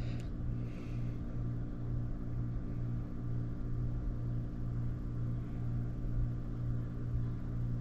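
Steady low hum with a faint hiss underneath: background room tone with no distinct events.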